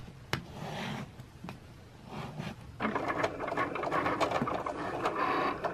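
Cricut cutting machine at work, its carriage and motors moving the blade across heat-transfer vinyl on the mat: a dense, rapidly pulsing mechanical whirr that starts about three seconds in. A few sharp clicks come before it.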